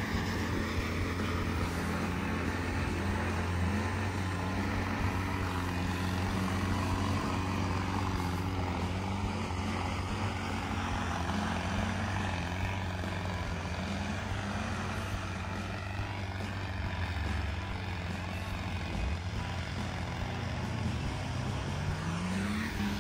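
Off-road vehicle engines running steadily, a deep drone with pitch that wavers as they work, and an engine revving up just before the end.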